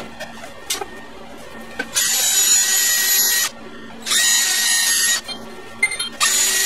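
Cordless drill running a wire wheel brush to clean the exhaust pipe, in three bursts of a second or so each. Each burst is a steady high whine mixed with hiss.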